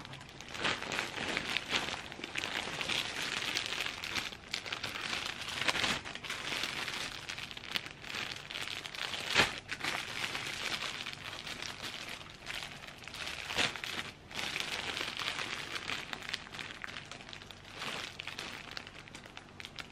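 Clear plastic dry-cleaning bags around folded clothes crinkling and rustling as they are handled, with a few sharper crackles along the way.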